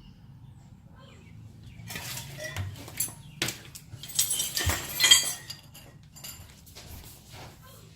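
Clinking and rattling of metal parts and tools being handled, a cluster of sharp clicks and rustles from about two seconds in until about six seconds in, loudest near the middle.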